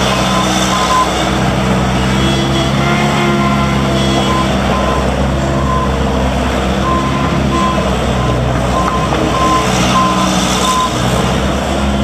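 New Holland L190 skid steer loader's diesel engine running steadily while the machine drives and turns. Its backup alarm beeps on and off, a short high beep repeating through much of the second half as it reverses.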